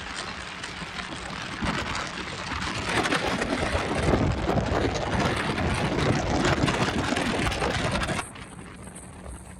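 Motorboat running fast in strong wind: wind buffeting the microphone and rushing water over a steady engine hum, getting louder about three seconds in. It cuts off abruptly near the end to a much quieter background.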